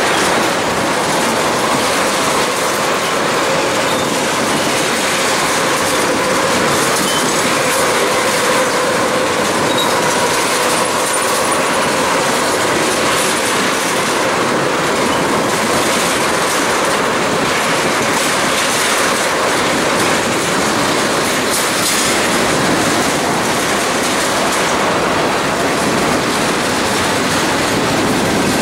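Freight train of tank cars rolling past close by: a steady, loud rumble of steel wheels on rail with clickety-clack and faint wheel squeal, a thin squeal tone most noticeable in the first half.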